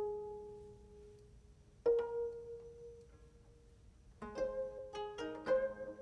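Gayageum, the Korean plucked zither, playing slowly. Two single notes are each left to ring and die away, then from about four seconds in a quicker run of plucked notes begins.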